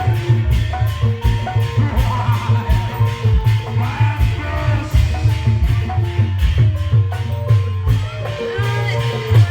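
Indramayu reog street-troupe music: hand drums beating fast over short, ringing notes of tuned metal percussion and a steady low drone.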